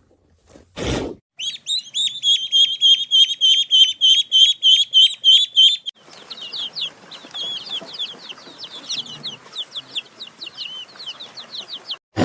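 Bird calls: a brief noisy thump, then a fast, even run of high chirps at about four a second, followed by a looser, irregular series of high chirps over faint background hiss.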